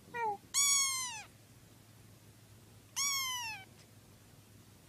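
A domestic cat meowing three times: a short meow, then a longer one, then another about three seconds later. Each meow falls in pitch toward its end.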